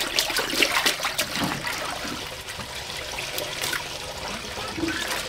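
Clothes being hand-washed in a concrete pila: a wet garment sloshed and scrubbed against the ridged washboard, with water splashing and trickling in uneven spurts.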